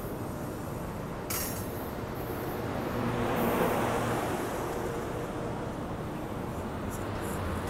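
Amtrak Capitol Corridor train pulling out of the station, its Amtrak California bi-level passenger cars rolling past with steady wheel-on-rail rumble. There is one sharp click about a second in, and the rumble swells a little midway.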